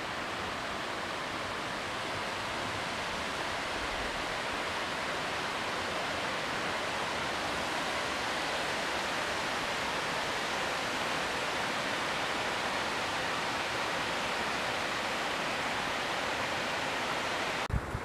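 Steady rush of the Spree river running over its rocky bed, an even hiss of moving water. A short thump near the end.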